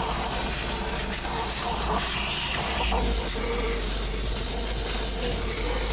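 A steam cleaner hissing steadily while a vacuum runs alongside it, both worked together on the car's console trim and seams, the steam lifting the dirt as the vacuum sucks it up.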